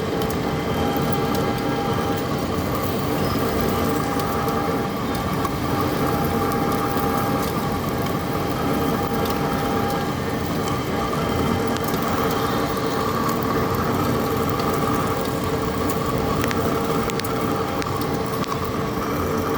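Heavy-duty lathe running while turning a large steel part: a steady machine noise with several constant humming tones over it, one of which drops out about halfway through.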